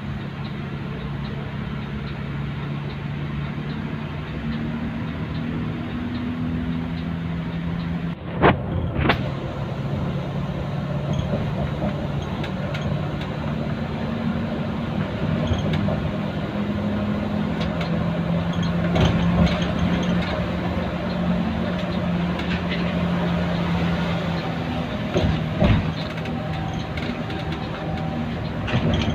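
Road vehicle engine running at a steady hum while travelling, its pitch stepping up and down a few times, over constant road noise. There is a brief sharp rattle or knock about a third of the way in, and a couple more near the end.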